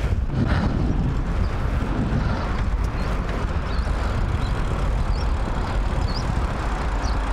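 Steady wind and road rumble on the microphone of a bicycle in motion. Faint short high chirps repeat roughly once a second from about three seconds in.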